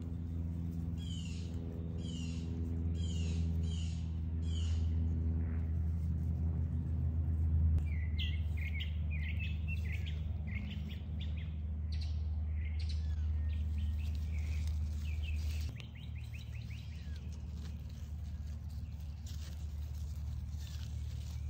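Wild birds calling: a run of about seven quick, high, falling notes in the first five seconds, then a busier high chatter from about eight seconds in. Under the birds runs a steady low mechanical hum, which drops away about two-thirds of the way through.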